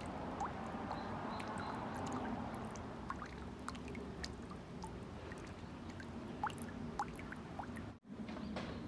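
Water dripping from a metal spout into a stone garden basin: irregular single drips, each a short rising plink, over a steady outdoor hiss.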